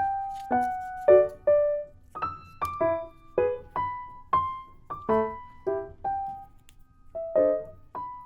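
Soft background music: a light, gentle keyboard melody of struck notes and small chords, about two a second, each ringing briefly and fading.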